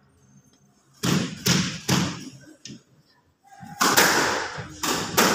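Squash rally: the ball is struck by rackets and hits the walls and floor in sharp knocks, starting about a second in and coming faster from near the middle.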